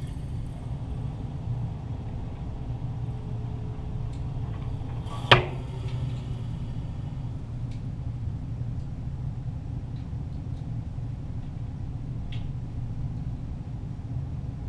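Steady low hum with a single sharp .22 pistol shot about five seconds in, and a few faint ticks later on.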